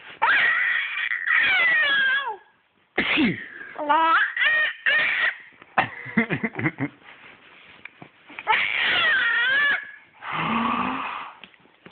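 A baby squealing and laughing in a string of short, high-pitched bursts with brief pauses between.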